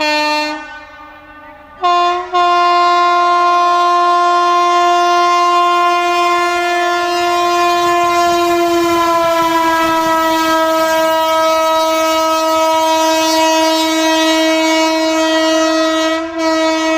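Locomotive horn, sounded by a single locomotive passing at speed on a speed trial. A short blast comes first, then a long blast held for about fourteen seconds. Its pitch drops slightly as the locomotive goes by.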